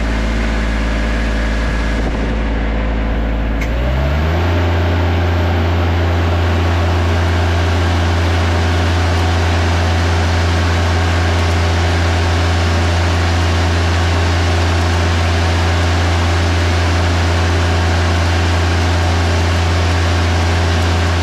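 Lincoln Ranger 300 DLX engine-driven welder running: about four seconds in, its engine speeds up from idle to weld speed, then runs steadily under load while a 7018 stick electrode arc crackles.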